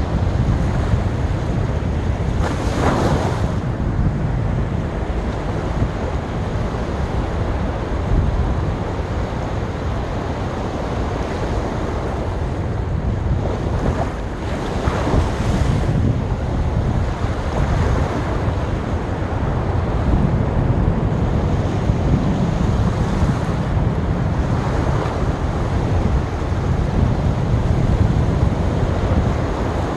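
Sea waves breaking and washing onto a beach, the surf swelling and easing several times, with wind buffeting the microphone as a steady low rumble.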